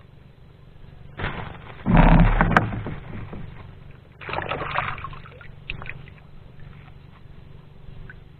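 A stone taken from a sack of stones and handled in a small wooden outrigger boat: a loud rustling and knocking burst a little over a second in that ends in a sharp click, then a second scraping burst about four seconds in, and a few small ticks. A faint low rumble runs underneath.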